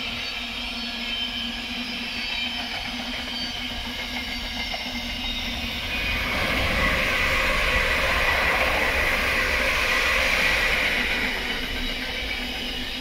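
Container freight train rolling steadily past on the rails. About six seconds in, an electric multiple-unit passenger train passes on another track, and the sound grows louder for about five seconds before easing back.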